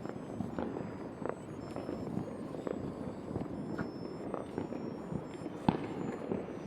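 Many fireworks and firecrackers going off at once, a dense crackle of distant pops and bangs with one sharper crack near the end.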